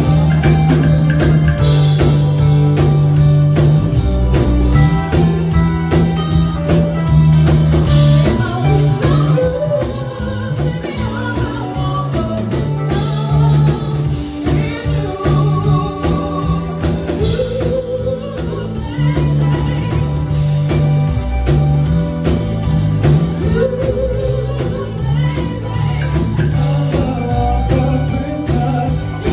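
A live band playing, with keyboards, guitar and a drum kit under singing vocalists.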